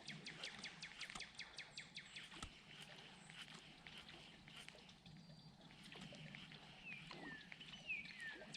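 Faint animal calls at a pond: quick runs of sharp clicks near the start and again at the end, and a few short falling whistles near the end.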